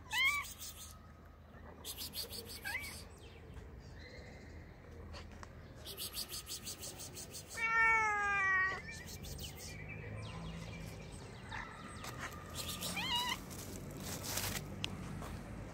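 Cats meowing four times: a short rising meow at the start, another about three seconds in, a long, loud falling meow about eight seconds in, and a last one near the end.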